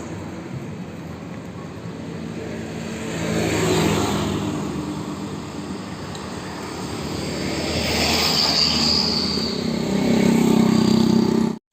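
Electric blender motor running, its noise swelling louder twice, then cutting off suddenly near the end.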